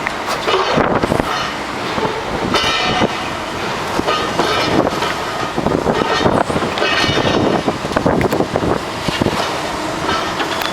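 Building demolition at work: a dense, irregular run of crashing and clanking metal and rubble, with metal screeching again and again.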